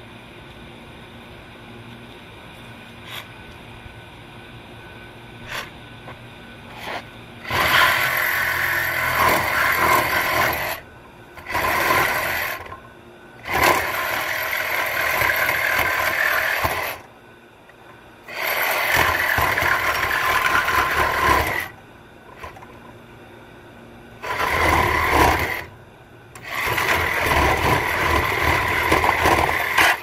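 Cordless reciprocating saw cutting through the sheet metal and tubing of an air-conditioning condenser unit. It runs in six bursts of one to four seconds each, starting about seven seconds in, with short pauses between them. A few light clicks come before the first cut.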